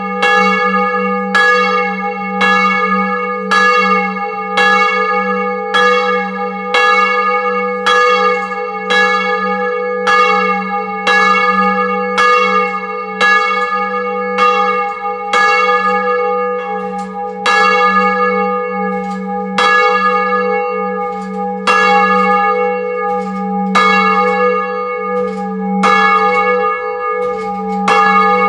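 Old church bell swinging in its belfry, its clapper striking in a steady rhythm, each stroke ringing on over a lasting low hum, rung as the prayer bell. The strokes come further apart in the second half.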